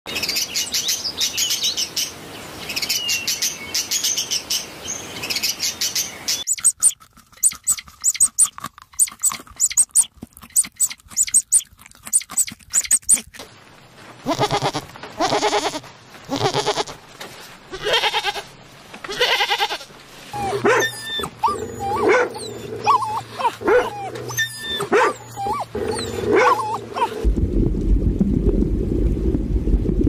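A sequence of animal sound clips: high parrot chatter and squawks, then several seconds of rapid sharp clicking, then goats bleating in repeated calls, then short chirping calls over a low hum. Near the end a low, steady rushing of bubbling water takes over.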